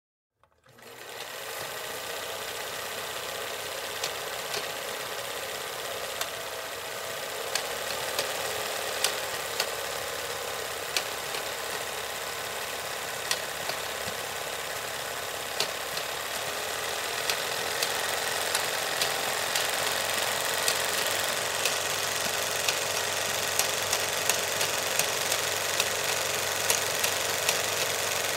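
Film projector running: a steady, fast mechanical clatter with sharp clicks at irregular intervals. It fades in over about the first second and grows a little louder later on.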